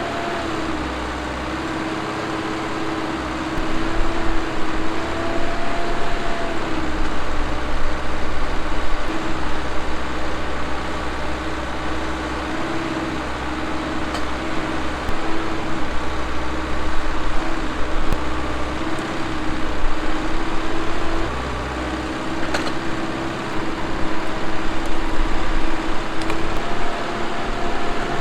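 Cummins diesel engine of a 1987 Timberjack 230 forwarder running, a steady drone whose pitch and loudness shift a little as the revs change.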